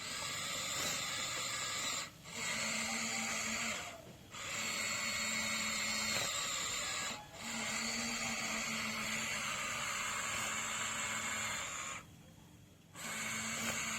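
Electric motors of a Huina 1593 RC excavator whining in runs of a few seconds, cutting out briefly about two, four, seven and twelve seconds in as one movement stops and the next starts.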